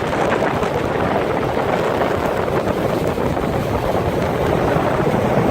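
World Cat 330TE power catamaran running underway: a steady rush of engine, hull and water noise, with wind buffeting the microphone.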